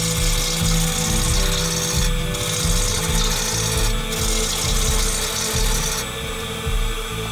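Roughing gouge cutting a spinning spalted hickory log on a wood lathe: a steady hiss of the tool shearing wood over the lathe's hum, breaking off briefly twice and stopping about six seconds in.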